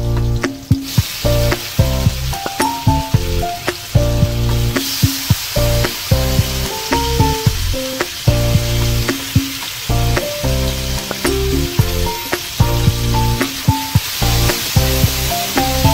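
Sliced onion and garlic sizzling in hot oil in a stainless steel wok, stirred with a wooden spatula. The sizzle grows much louder about five seconds in, as chopped tomatoes go into the pan. Background music with a steady beat plays throughout.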